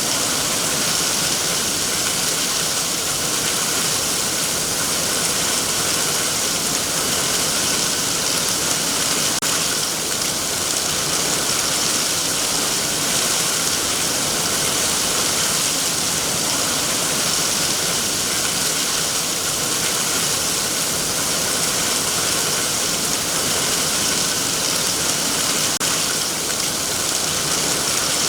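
Heavy rain falling steadily on trees and foliage, an even, unbroken hiss of countless drops.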